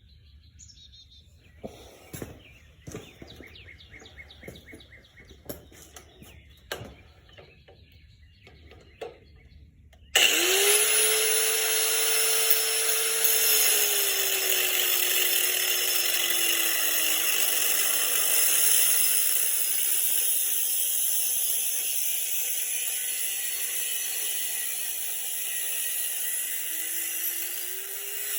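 Scattered light clicks and knocks of handling, then about ten seconds in a high-speed power cutting tool starts suddenly and runs steadily, cutting through the motorcycle's steel frame tubing. Its pitch falls slowly as it bears into the cut and rises again near the end.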